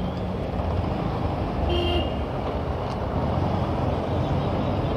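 Motorcycle riding slowly through city traffic: steady engine and road noise, with one brief vehicle horn beep about two seconds in.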